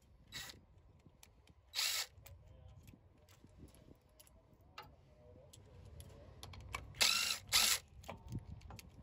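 Power ratchet running in short bursts as it undoes the nut on a throttle-cable rod end: one brief burst near the start, another about two seconds in, and two more close together around seven seconds in.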